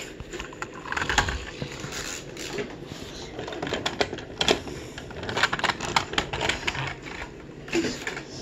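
Irregular light clicks and taps of toy cars and wooden train pieces being handled and moved about.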